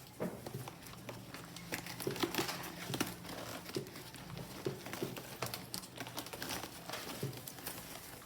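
Gift wrapping crinkling and rustling in irregular handfuls as a present is pulled open by hand.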